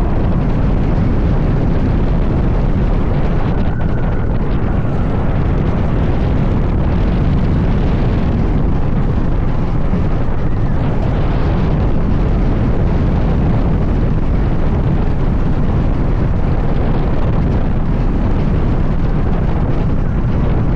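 Steady loud rush of wind on the microphone over the low rumble of a roller coaster train running at speed on an RMC wooden coaster track.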